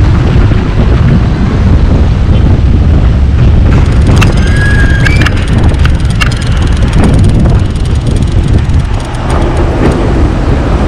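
Car rolling slowly over a rough dirt street: a loud, steady low rumble of road and tyre noise. Between about four and six seconds in come a few sharp clicks and a short high squeak that steps up in pitch.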